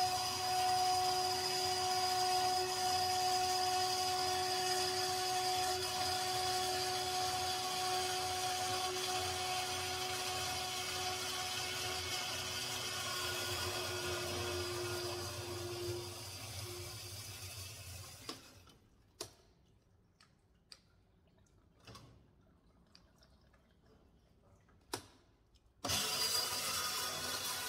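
Horizontal metal-cutting bandsaw running, with its coolant flowing, as it cuts through a metal pipe bend: a steady machine noise with a steady hum that winds down and stops about two-thirds of the way through. A few sharp clicks follow, and near the end the saw is switched back on and runs again.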